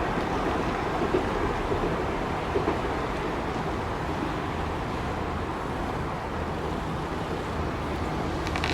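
A train running past on the line, a steady rumble with a low hum.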